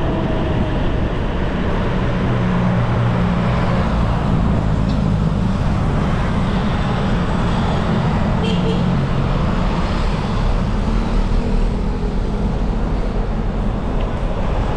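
Steady wind and road noise from a mountain bike rolling downhill on asphalt, heard through a GoPro's microphone, with motor traffic running alongside.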